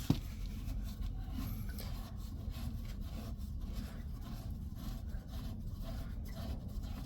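Pipe wrench working loose a water heater's gas line fitting: one sharp knock at the very start, then faint irregular scraping and small clicks of metal on metal.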